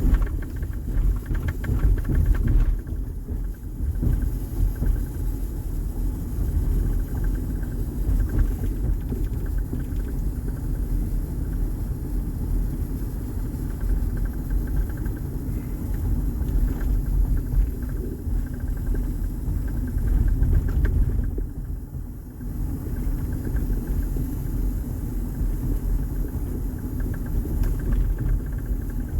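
Steady low rumble of road and engine noise inside a 2007 Honda Odyssey driving on the highway, easing briefly twice. There are no clunks or knocks from the suspension, which has new bushings and sway bar links.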